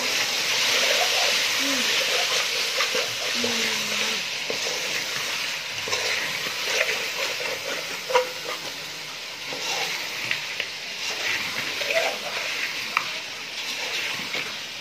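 Chicken pieces and small onions sizzling in hot oil in a metal pot while being stirred, with occasional short scrapes and knocks of the stirring spoon against the pot. The sizzle is loudest in the first few seconds and eases after that.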